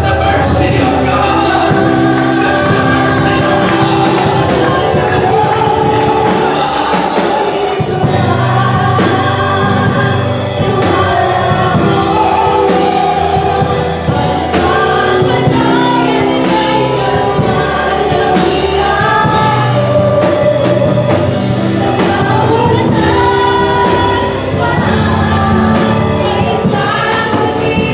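Congregation singing a gospel song together with instrumental accompaniment.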